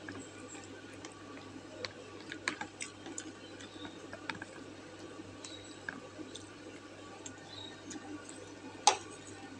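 Quiet eating sounds from noodle soup: chewing and scattered light clicks of utensils, with one sharper click near the end, over a low steady hum.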